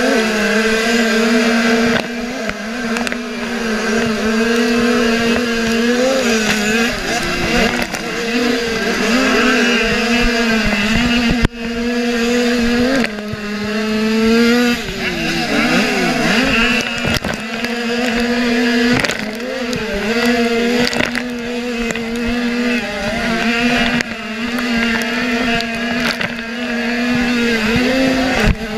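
A motocross motorcycle engine running hard under load, heard from on the bike itself. Its steady pitch dips and climbs again now and then with the throttle.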